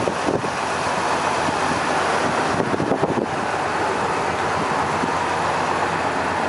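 Steady rushing road-traffic noise, with a little faint clatter around the third second.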